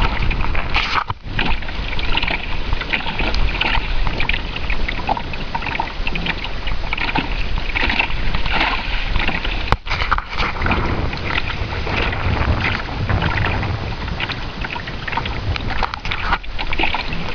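Water rushing and splashing along the wooden hull of a lapstrake sailing canoe under sail, with wind buffeting the microphone as a low rumble.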